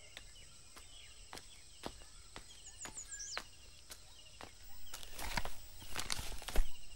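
Quiet ambience of birds chirping in short repeated notes, over a run of light regular clicks about two a second. Louder rustling steps come in over the last two seconds.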